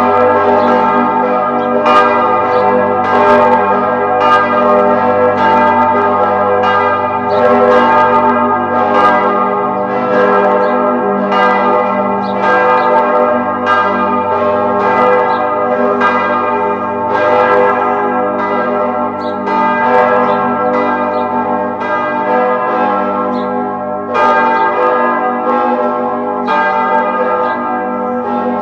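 Church bells ringing in a continuous peal, struck over and over about twice a second, each stroke's ringing running into the next.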